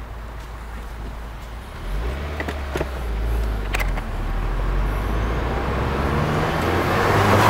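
Turbocharged 2.0-litre flat-four engine of a 2015+ Subaru WRX accelerating from low speed, heard from inside the cabin with the front windows down. The engine hum strengthens about two seconds in and grows steadily louder, its pitch edging up near the end. A few light clicks come in the middle.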